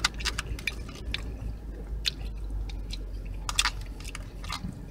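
A person chewing a mouthful of food with the mouth closed, close to the microphone: a string of short, irregular mouth clicks and smacks over a steady low hum.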